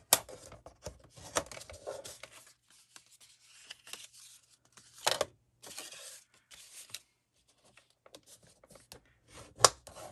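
Paper being handled and worked by hand: intermittent rustling and crinkling, with a few sharp clicks, the loudest just after the start and about five seconds in.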